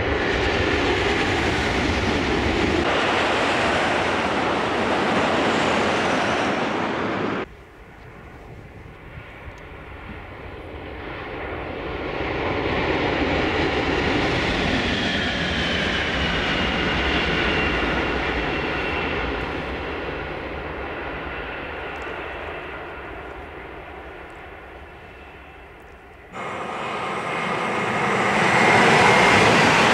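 High-speed electric trains passing at speed, in three takes. A Renfe S102/S112 goes by loudly and cuts off abruptly about seven seconds in. A second train's sound swells and fades with a faint falling whine, and about 26 s in an S104 cuts in, approaching and growing louder.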